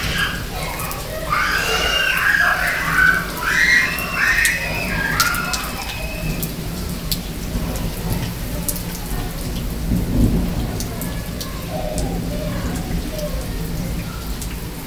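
Heavy rain falling and pattering on hard surfaces, with the low rumble of thunder that swells about ten seconds in. A few high-pitched calls rise over the rain in the first five seconds.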